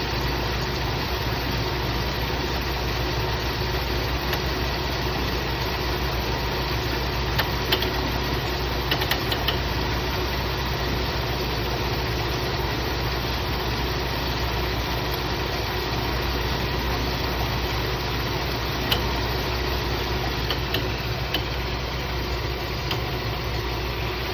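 Car engine idling with the air-conditioning compressor running, a steady noise with faint constant tones and a few sharp ticks, about eight and nineteen seconds in. The owner suspects a failing AC compressor clutch or compressor.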